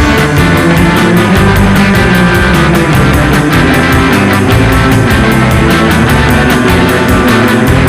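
Loud rock music soundtrack with distorted guitar and a fast, steady drum beat.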